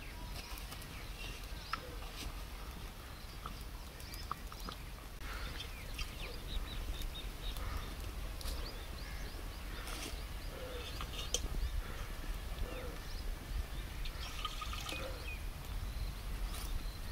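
Outdoor woodland ambience: birds chirping in short clusters, a steady low wind rumble on the microphone, and scattered light clicks.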